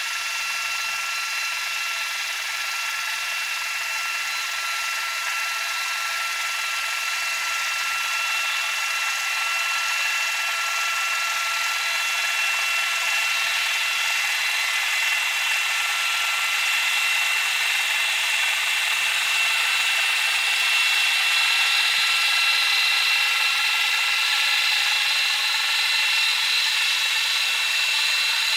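Hydrophone recording of a sailboat's engine and propeller underwater: a steady mechanical buzz with several high steady tones over a hiss, slowly growing louder.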